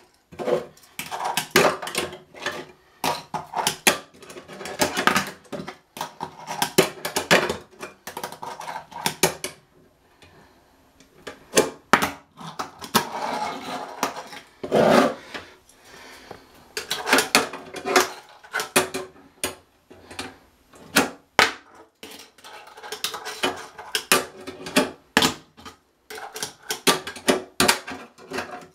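29 mm Tech Deck fingerboard worked by fingers on a stone countertop and a plastic ramp-and-rail obstacle: rapid clacks of the small board popping and landing, with scraping runs between them. There is a short lull partway through.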